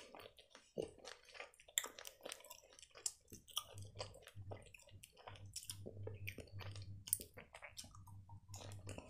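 Close-up mouth sounds of someone chewing gummy candy: soft, irregular wet smacks and clicks.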